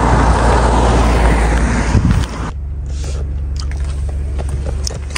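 A car passing on a wet road: loud tyre hiss with a low rumble. About two and a half seconds in it cuts off abruptly, leaving a steady low hum.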